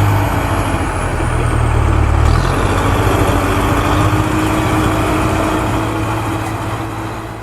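Heavy engine idling steadily, its low hum shifting slightly about two seconds in and growing quieter toward the end.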